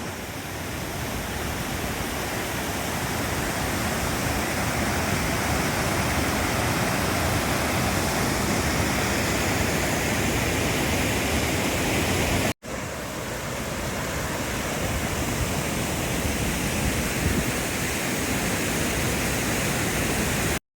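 Waterfall pouring: a steady, loud rush of falling water. It cuts out for an instant about twelve and a half seconds in, then carries on.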